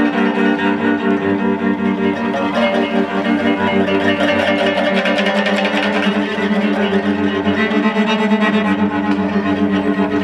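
Free-improvised music: a cello bowing sustained, wavering low tones in a dense, unbroken texture, with plucked string notes over it.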